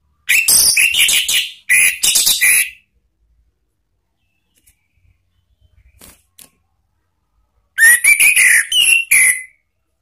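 Orange-headed thrush singing loud whistled phrases: two bursts of quick rising and falling notes in the first three seconds, a pause, then a third phrase near the end.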